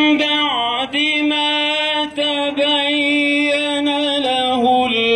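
A man reciting the Quran in the melodic tajwid style. He holds long steady notes, with ornamented turns in pitch about half a second in and again near the end.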